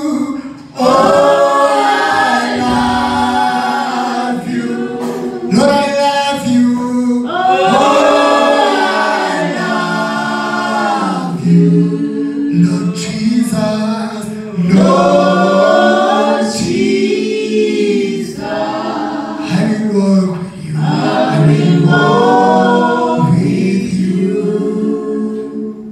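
Church gospel choir singing without instruments, men leading into microphones; the song fades away near the end.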